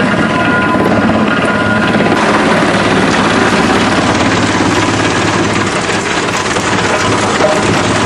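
Drum wood chipper running while wood is fed in, a loud steady mechanical din with a low hum underneath.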